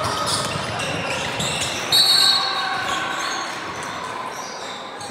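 Basketball game sounds in a gym: a ball bouncing and shoes on the court, with background voices and a short high-pitched squeal about two seconds in.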